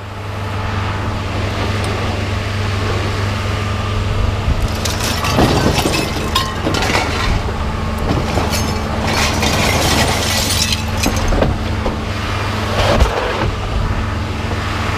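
Vehicle engine idling steadily, with a run of sharp clanks and rattles, like loose metal being handled, from about four and a half to eleven seconds in.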